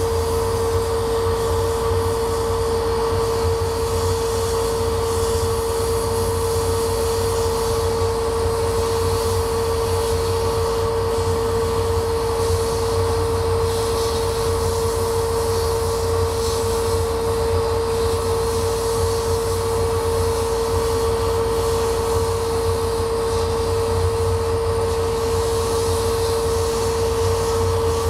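Laser cutter running as it cuts a wooden sheet: a steady machine hum with a constant mid-pitched whine and a low rumble.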